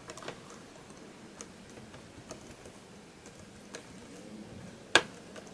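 Fingers pressing down on the keys and plastic keyboard frame of a Dell Latitude 5490 laptop, pushing the frame's clips into place: light, scattered clicks, with one sharper click about five seconds in.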